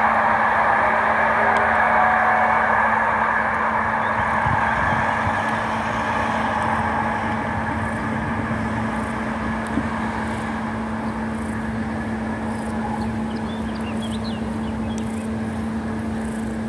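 Passenger train on an electrified line running away into a tunnel, its rumble and hiss fading slowly over a steady low hum. Faint chirps near the end.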